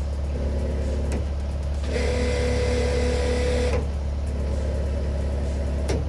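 Hydraulic motor of a brush mower attachment spinning free on the Cat 299D skid steer's auxiliary hydraulics, a steady whine from about two seconds in for nearly two seconds, then stopping, over the skid steer's diesel engine running throughout. It is a test run of the motor for damage, and nothing sounds bad to the owner.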